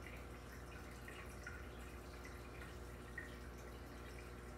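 Aquarium water circulation: faint irregular trickling and dripping plinks over a steady low pump hum, with one sharper plink about three seconds in.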